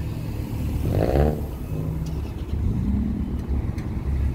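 Several car engines idling and running in a parking lot, a steady low rumble, with a brief louder rising burst about a second in.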